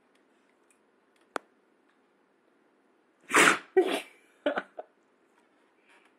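Dog sneezing twice in quick succession about three and a half seconds in, followed by a couple of shorter, quieter bursts. A single sharp click comes about a second and a half earlier.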